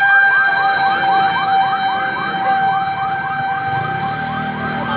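Fire truck siren on a fast yelp, about six rising sweeps a second, over a steady held tone.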